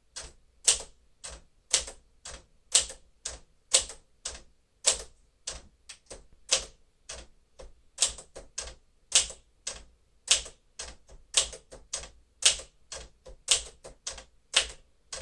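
1954 Smith-Corona Silent-Super manual typewriter being typed on at a steady pace, its type bars striking the platen at about two to three keystrokes a second as the capital letters are typed.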